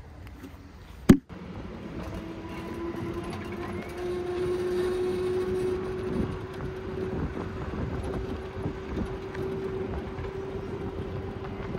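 Electric cargo bike rolling along an asphalt path: a steady hum with tyre and wind noise, and small rattles over bumps. A single sharp click about a second in.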